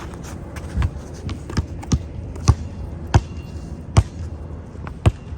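A basketball bouncing on a hard court: about eight uneven thuds, the loudest in the middle of the run.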